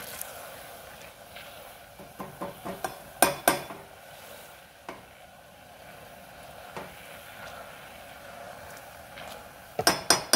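Sugar and citrus glaze bubbling and sizzling steadily in a stainless steel saucepan as the lemon and lime rinds release their oil and water. A silicone spatula stirs and knocks against the pan, a run of sharp clacks about two to three and a half seconds in and again near the end.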